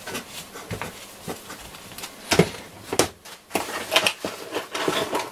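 Handling noise of a Roberts R727 transistor radio on a workbench: tissue rubbing over its front panel, then an irregular run of sharp knocks and clicks as the radio is moved and set down on a cutting mat. The loudest knock comes about two and a half seconds in.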